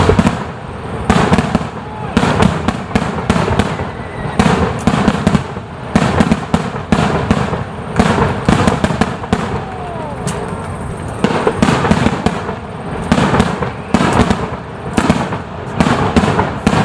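Fireworks display: a dense barrage of aerial shell bursts, sharp cracks and booms following one another many times a second with hardly a gap.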